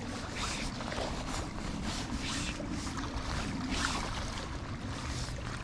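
Steady rush of flowing river water, with brief splashes from a hooked smallmouth bass thrashing at the surface.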